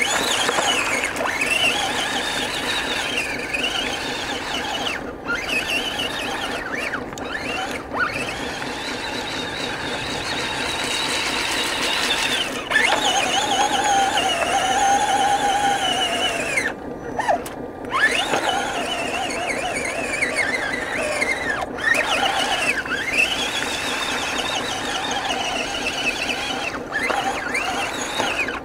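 Electric motor and gears of a radio-controlled dump truck (a converted vintage metal Tonka) whining as it drives through mud, the high pitch rising and falling over and over with the throttle. It cuts out briefly twice about two-thirds of the way through.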